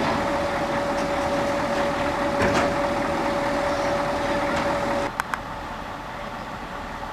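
Heavy machine's engine running with a steady high whine over its rumble. The whine stops abruptly about five seconds in, followed by two quick clicks, and quieter running noise after.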